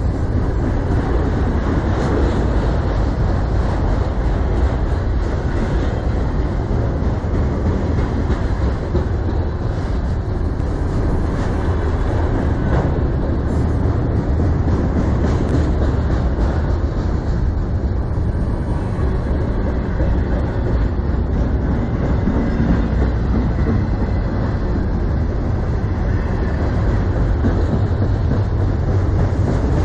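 Multi-level autorack freight cars rolling past close by: a steady, loud rumble of steel wheels on the rails.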